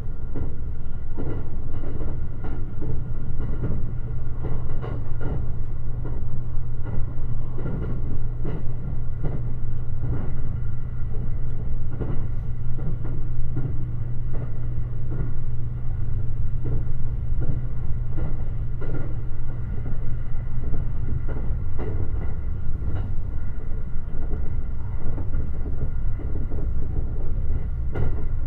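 Limited Express Shirasagi electric train running at speed: a steady low rumble with frequent clacks of the wheels over rail joints and a faint steady whine above.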